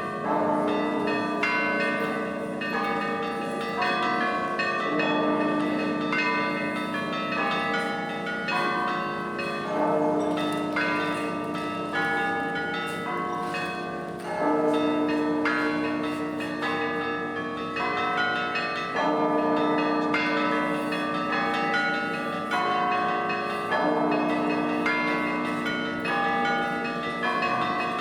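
Russian Orthodox church bells ringing. Several bells are struck in a quick repeating pattern over a heavier deep stroke about every five seconds, each note ringing on as the next is struck.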